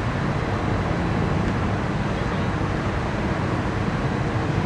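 Steady low rumble of distant city traffic heard from high above the city, an even hum with no single vehicle standing out.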